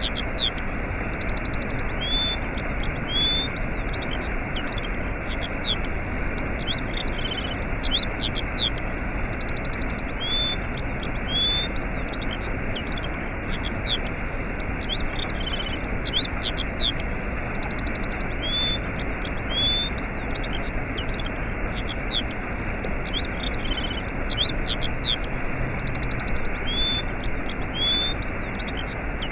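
Steady rushing of a waterfall, with many small birds chirping and trilling over it in short, high, repeated calls.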